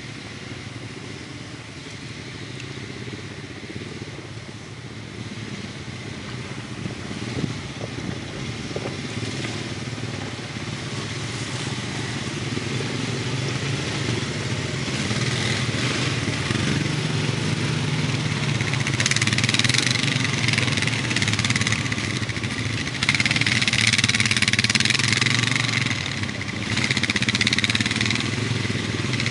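ATV engines running, growing steadily louder. From about halfway through, a loud rushing hiss comes and goes in stretches over the engine sound.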